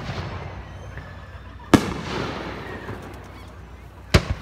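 Aerial firework shells bursting overhead: one sharp bang about two seconds in and a quick double bang near the end, each trailing off afterwards.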